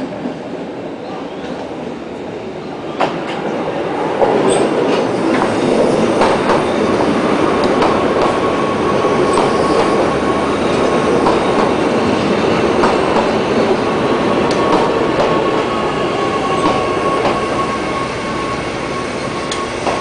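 Mont-Blanc Express electric train running slowly past at close range, growing louder and settling into a steady rumble from about four seconds in, with scattered clicks from the wheels over the rail joints. A thin, steady whine joins about halfway through.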